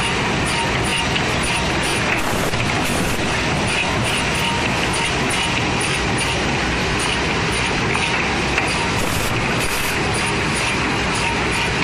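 Automatic woodworking cut-off saw machine running: a loud, steady mechanical din with a faint constant tone, broken by a few brief bursts of high hiss.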